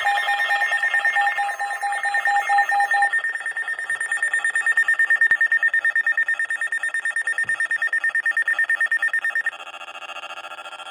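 Weather radio alert alarm for a severe thunderstorm warning: a loud, rapidly pulsing electronic beeping. For the first three seconds it sounds on two pitches, then it holds one higher pitch, and about nine and a half seconds in it drops in level and changes to a lower, many-toned warble.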